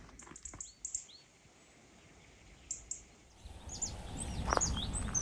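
Small birds chirping in short runs of quick, high notes. A few soft knocks come in the first second, and a single knock about four and a half seconds in.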